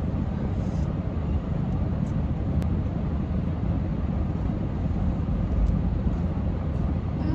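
Steady low rumble of a car's cabin with the engine running.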